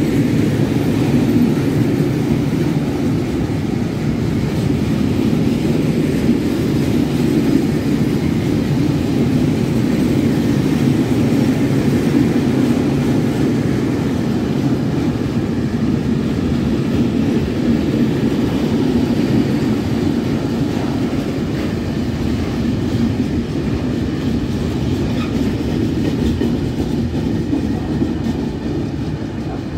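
Freight train of covered hopper wagons rolling past at a steady speed: continuous rumble of wheels on the rails, easing slightly near the end.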